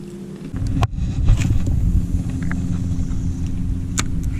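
Wind buffeting the microphone on an open fishing boat, a loud irregular low rumble that picks up about half a second in, over a steady low motor hum. A couple of sharp clicks, one about a second in and one near the end.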